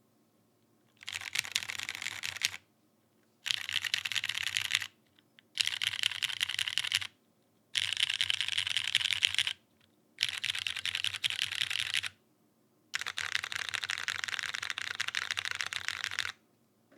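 Fast typing on a Geonworks F1-8X mechanical keyboard with lubed Cherry Hyperglide Brown tactile switches, an aluminium plate and GMK keycaps. The typing comes in six quick runs of rapid key clacks, with short pauses between them. The last run is the longest.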